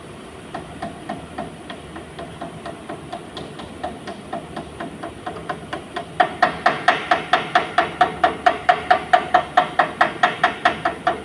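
Hammer tapping steadily on metal at about four strikes a second, each strike ringing. The strikes are light at first and turn much heavier about six seconds in.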